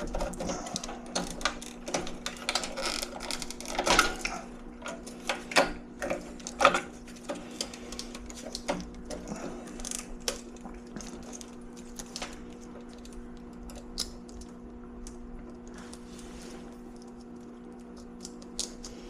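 Irregular clicks, taps and light rattles of hands handling wires, plugs and small parts during furnace control-board replacement, with the sharpest knocks about four to seven seconds in. A steady low hum runs underneath.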